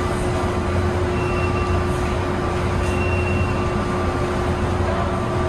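São Paulo Metro train running, heard from inside the car: a steady low rumble with a constant hum. Two brief high squeals come about a second in and again about three seconds in.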